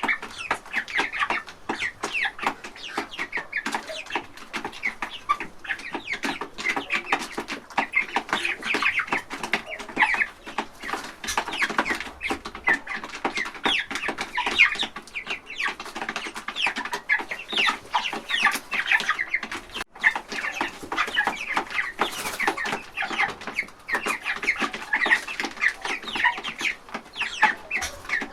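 A flock of chickens clucking without a break, many short calls overlapping one another.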